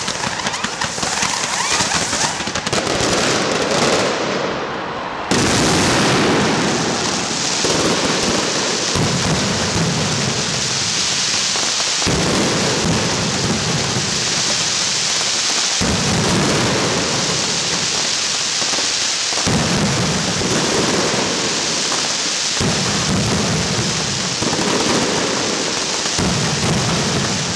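Mascletà firecrackers going off in an unbroken barrage, the bangs so dense they run together into a crackle like heavy rain over deep rumbling booms. The barrage grows suddenly louder about five seconds in.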